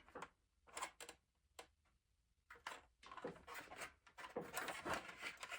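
Faint handling noises of lamp parts: a few scattered small clicks, then a busier run of clicks and rustling in the second half as the parts and cord are worked by hand.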